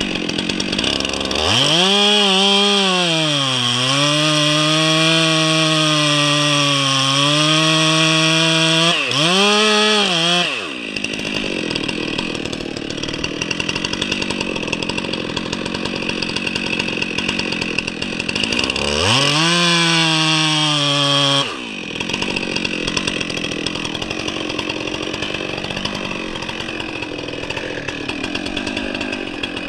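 Two-stroke chainsaw opened up to full throttle about a second and a half in and cutting for about nine seconds, its pitch sagging as the chain loads up in the pine, then dropping back to idle. About two-thirds of the way through it revs again for a couple of seconds before settling back to a steady idle.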